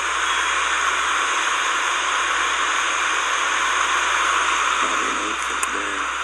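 Steady rushing of a nearby river: an even, loud hiss with no break. Faint low voices come in about five seconds in.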